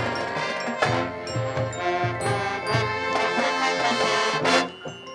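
High school marching band playing its field show, loud full-band music over steady low drum hits, with a sharp accent about a second in. Near the end the full band cuts off suddenly, leaving softer playing.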